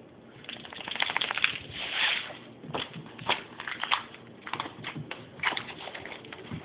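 A small dog scrabbling and pawing at its fleece bed on a tile floor: irregular scratching, rustling and claw clicks, starting about half a second in.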